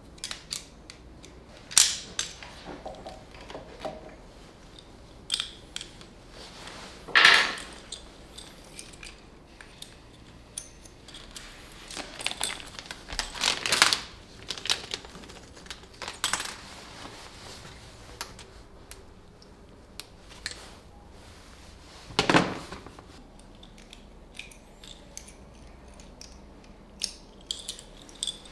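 Hand tools clicking and clinking against the metal parts of a motorcycle being worked on with a screwdriver. The clicks come irregularly, with a few louder knocks spread through.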